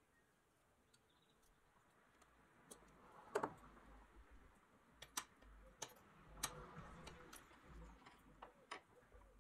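Light clicks and taps of a rusty pressed-steel toy airplane being handled and set against a wooden workbench, with faint scraping between them; the loudest tap comes about three seconds in.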